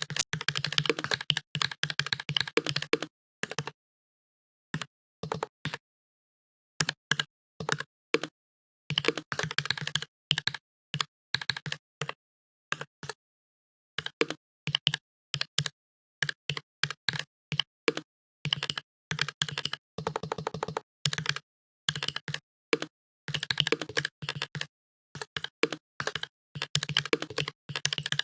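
Computer keyboard being typed on fast, in runs of rapid keystrokes broken by brief pauses.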